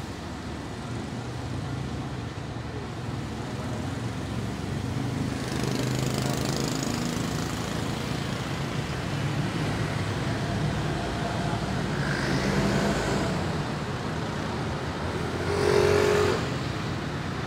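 Street traffic: vehicle engines running and passing, in a steady hum with a few swells. Near the end a louder, briefly pitched vehicle sound passes, the loudest moment.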